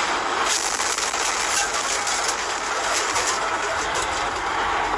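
Steady road and engine drone heard from inside a semi truck's cab at highway speed, with a stretch of repeated clattering and crackling from about half a second in to about three seconds in, as a car crashes just ahead and debris flies toward the truck.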